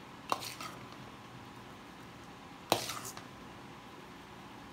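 A metal spoon clinking against a stainless steel mixing bowl and ramekin as soufflé batter is scooped and scraped off: two short clinks with a brief ring, the second, about two and a half seconds in, the louder.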